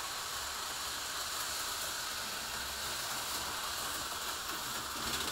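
HO-scale slot cars running on the plastic track: a steady whirring hiss with no clear rhythm.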